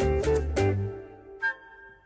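Background music with bass and plucked notes that fades away under a second in, followed by a single short high note about one and a half seconds in.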